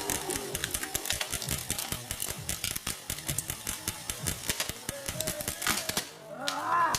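Airsoft guns firing: a dense, irregular run of sharp shots, several a second, thinning out after about five seconds.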